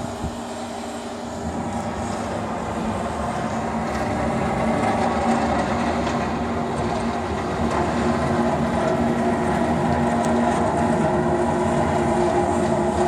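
A steady machine hum with several held tones, growing louder over the first few seconds and then holding even.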